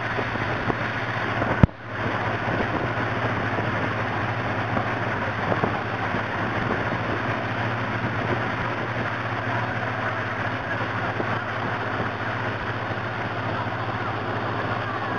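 Steady drone of a motorboat engine running under the rush of churning wake water and wind. A single sharp click comes just under two seconds in.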